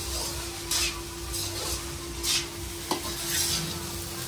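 Long slotted metal spatula scraping and tossing egg fried rice in a black kadai, in several strokes about a second apart, over a steady sizzle of the rice frying.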